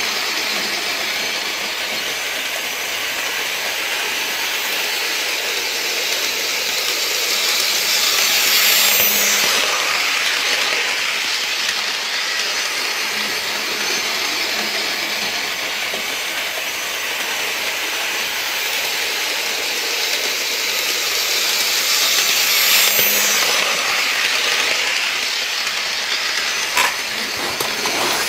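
H0-scale model train running on its track, a steady whirring hiss of motor and wheels that grows louder as the train passes close about 9 seconds in and again about 23 seconds in, lapping the layout. A single short click comes near the end.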